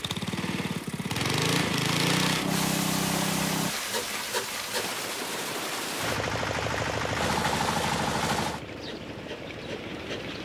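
Irrigation pump engine chugging, with water gushing from its outlet pipe. The engine drops out for a couple of seconds midway and comes back, then the sound falls quieter near the end.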